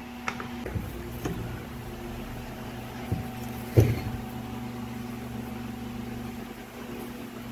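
A few metal clinks and knocks as a scooter's magneto flywheel is fitted and a socket set on its nut, the loudest knock nearly four seconds in, over a steady low hum.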